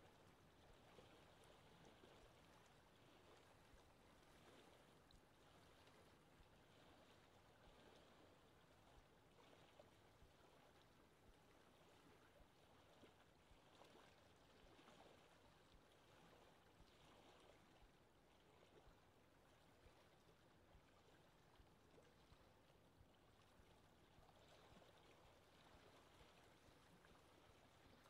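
Very faint lapping water, a soft even wash that swells and eases gently every few seconds.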